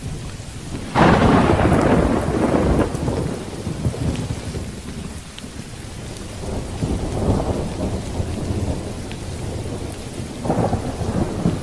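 Thunderstorm: rain falling with rolling thunder. A loud clap of thunder breaks about a second in and rumbles away over the next two seconds, with softer rumbles after it and another near the end.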